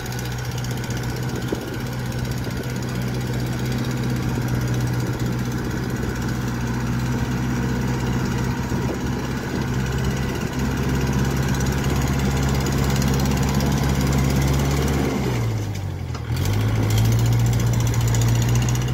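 Kubota L4508 tractor's diesel engine running hard as the tractor works through deep paddy mud, a steady drone growing slowly louder. About fifteen seconds in the engine pitch sags sharply for about a second as it bogs under the load, then picks back up, louder.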